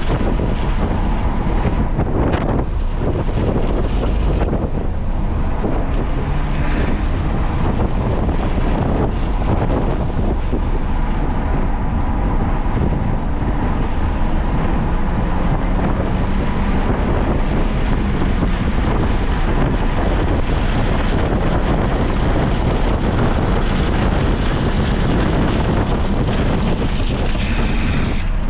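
Onboard sound of a car lapping a race circuit at speed: the engine runs steadily under load beneath heavy wind buffeting on the microphone.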